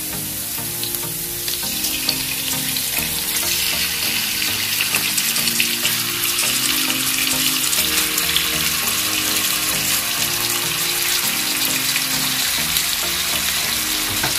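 Oil sizzling in a frying pan with sliced onion, garlic and ginger. The sizzle grows louder and brighter a few seconds in as raw chicken pieces are laid into the hot oil.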